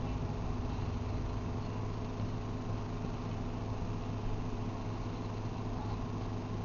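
Steady low mechanical hum with a few held tones, unbroken throughout.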